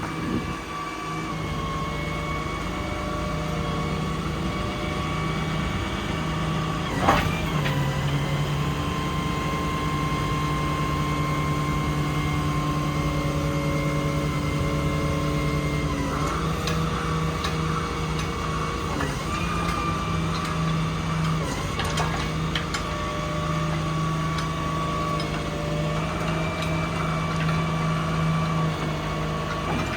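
Cummins 6.7 diesel of a crane truck running steadily, driving the crane's hydraulics, with a steady whine that dips briefly in pitch three or four times. A single sharp knock comes about seven seconds in.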